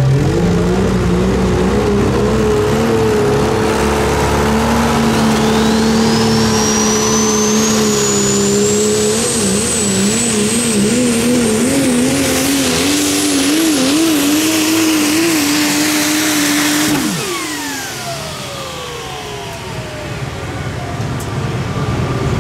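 Turbocharged diesel pickup pulling truck at full power down the track. Its turbo whistle climbs steadily to a very high pitch, and the engine note wobbles mid-run. About 17 seconds in the engine shuts off abruptly, its note dropping away, and the turbo whistle falls as it spools down.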